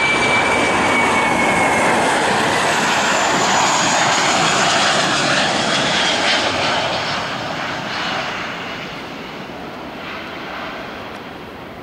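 Boeing 737-800 jet engines (CFM56-7B) at takeoff thrust: a loud roar with a thin whining tone that sags slightly in pitch, fading away over the second half as the aircraft climbs out.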